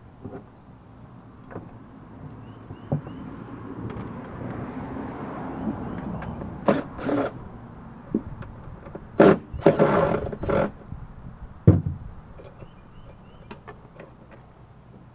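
Knocks and clatter of tools and hardware being handled during a car-audio teardown, with a rushing noise that swells and fades in the first half and a dense run of clattering about ten seconds in.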